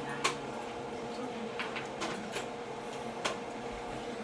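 Clear slime being squished and handled, giving a few short sharp clicks and pops spaced about a second apart, over a steady low hum.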